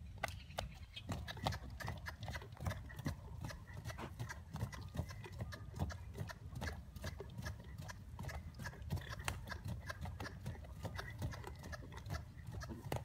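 Grey horse's hooves striking a dirt arena in a collected dressage trot: a quick, continuous run of hoofbeats, several a second.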